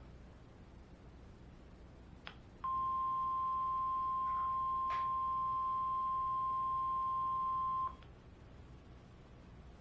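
NOAA Weather Radio 1050 Hz warning alarm tone: one steady, pure beep lasting about five seconds, preceded by a click and cutting off suddenly.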